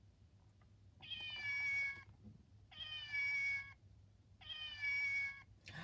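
Recorded cat meow from a children's sound book, the same electronic meow played three times, each about a second long.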